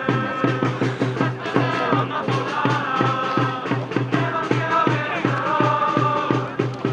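Supporters chanting in unison to a steady bass drum beat, about three to four beats a second.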